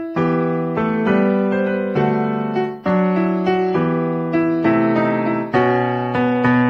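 Background music: a piano playing a steady run of notes, about two a second.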